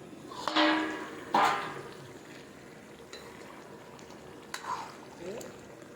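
A spoon scrapes and stirs through thick jackfruit curry in a metal pan, with two loud scrapes in the first second and a half. The simmering curry then keeps up a low sizzle, with a few light knocks near the end.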